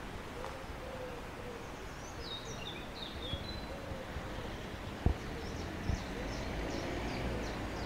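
Faint bird calls: soft low hoots repeating about once a second, with high short chirps, and two soft knocks about five and six seconds in.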